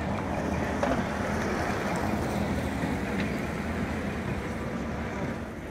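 City street ambience with steady road traffic, plus a couple of faint ticks.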